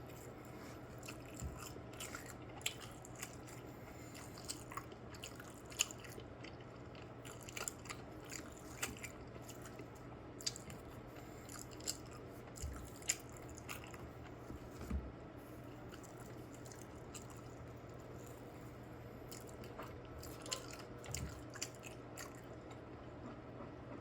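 A person eating French toast close to the microphone: soft chewing and mouth sounds with scattered small clicks and taps.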